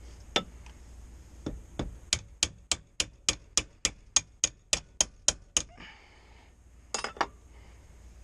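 Hammer striking metal, most likely driving a swingarm bearing into a Kawasaki KDX200's swingarm: a few separate knocks, then an even run of about a dozen sharp strikes at roughly three a second. A brief clatter of metal comes near the end.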